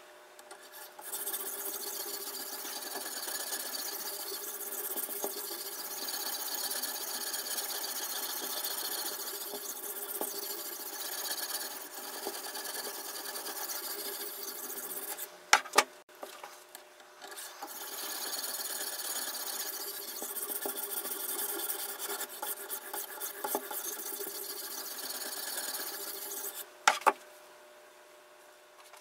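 Sharpening stone on the guide rod of a toohr guided-angle knife sharpener, rubbed back and forth along a clamped chef's knife edge with a steady scraping rasp. It stops in the middle for a few sharp clicks, runs again, and ends with more clicks near the end.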